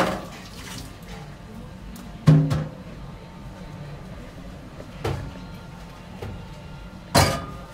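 Dishes knocking against a stainless-steel sink: three separate clanks, the loudest about two seconds in, over a steady low hum.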